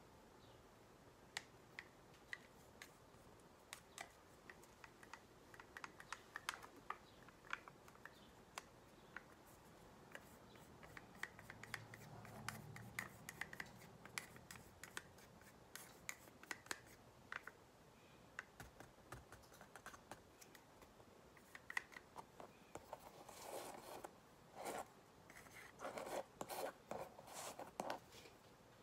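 Quick, irregular small taps and clicks of a wooden brush handle dabbing acrylic paint dots onto a canvas pad, with a few short scraping strokes near the end.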